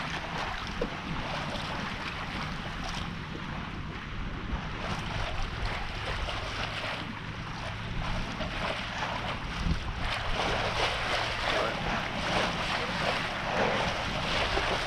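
Wind buffeting the microphone and water washing along the hull of a sailboat under way, growing louder about ten seconds in.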